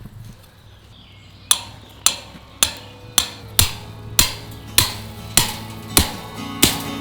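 Background music: a steady beat of sharp, ringing knocks about every 0.6 s, starting about a second and a half in, with a guitar coming in near the end.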